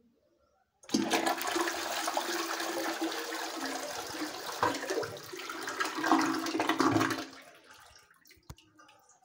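Ecoline toilet flushing: a sudden rush of water starts about a second in and runs for some six seconds with a low steady tone beneath it, then dies away. A single short click near the end.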